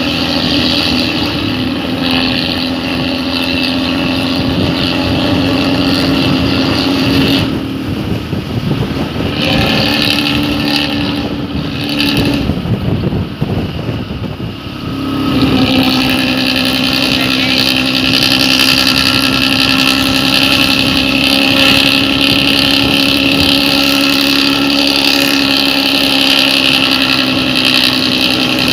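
Bus exhaust fitted with a 'ngorok' (snoring) muffler, running loud and steady. Its steady drone breaks up and drops back for several seconds in the middle, then comes back at full strength.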